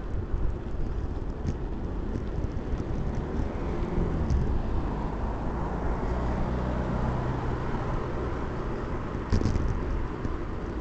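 Wind rushing over a small action camera's microphone on a moving mountain bike, with a low engine hum rising and holding through the middle and a brief rattle of the bike near the end.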